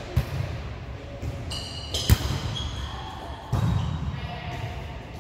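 Indoor volleyball play in a gym hall: a sharp smack of the ball about two seconds in, with a lighter hit near the start, a few short high squeaks, and players' voices echoing in the hall.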